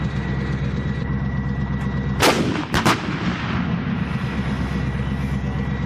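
PzH 2000 self-propelled howitzer: a steady low rumble from the vehicle's running engine, broken a little over two seconds in by a sharp blast and two quicker cracks about half a second later, typical of its 155 mm gun firing.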